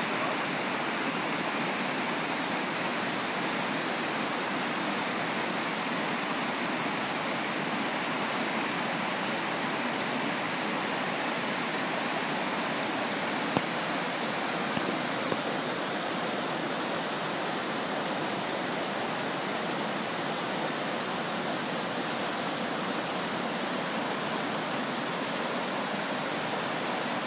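Shallow mountain torrent rushing over stones and riffles: a steady wash of water noise. A single sharp click comes about halfway through.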